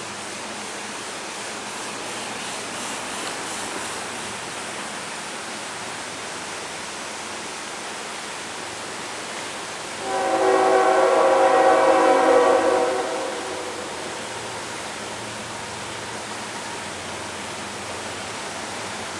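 Diesel freight locomotive's air horn sounding one blast of about three seconds, a little after the middle, from a train not yet in view. Under it runs the steady rush of the river in high water.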